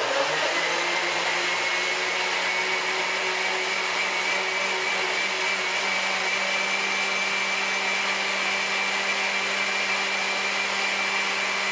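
An old countertop blender, about 30 years old, running at one steady speed, puréeing tomato and onion in tomato juice; a motor hum with a high whine that rises slightly as it comes up to speed in the first second.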